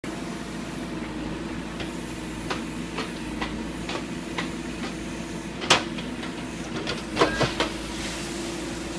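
Backhoe engine running steadily, with light metallic knocks about every half second, one loud clank a little past halfway and a quick run of clanks near the end.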